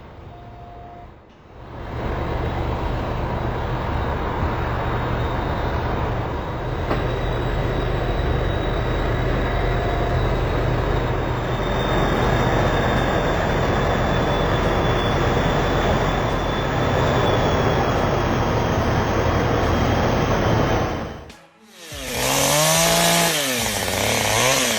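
A heavy engine running steadily under load with a lot of rough noise for most of the time. Near the end it cuts off, and a chainsaw is revved up and down several times.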